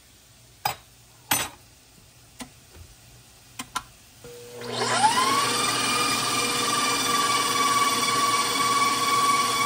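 A few light clicks, then a stand mixer's motor starts about four and a half seconds in, its whine rising quickly and settling into a steady high hum as the balloon whisk beats pancake batter.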